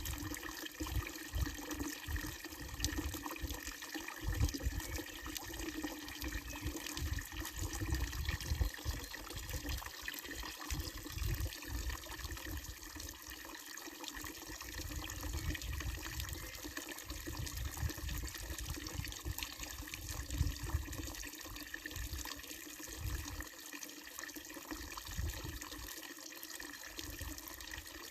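Water running steadily from a wooden spout of a village fountain and splashing into its trough, with an uneven low rumble coming and going underneath.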